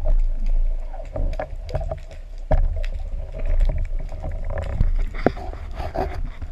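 Underwater noise picked up through a speargun-mounted camera's housing: a steady low rumble of water moving past as the spearfisher swims up towards the surface. Several sharp knocks and clicks come from the gun and shooting line being handled.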